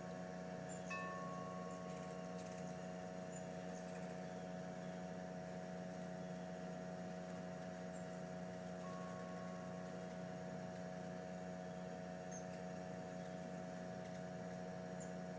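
A steady machine hum at a constant pitch, with a few faint short high chirps and a soft ringing tone about a second in and again near nine seconds.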